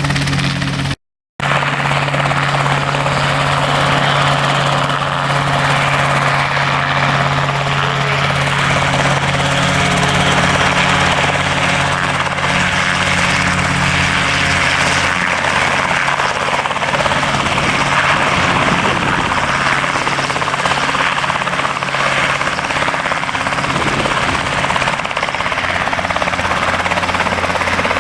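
RotorWay Exec 90 helicopter running steadily, engine tone under the whoosh of the rotor. The sound cuts out completely for a moment about a second in.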